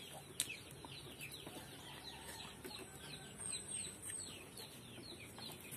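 Chickens in the background: a steady run of faint, short falling chirps, several a second, with a few faint clicks.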